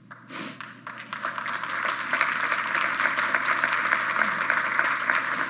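Audience applauding: the clapping swells over the first couple of seconds, then carries on steadily.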